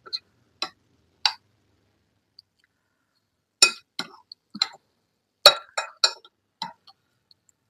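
Short clinks of tableware being handled during a meal: three separate clinks, then two quick runs of clinks starting about three and a half and five and a half seconds in.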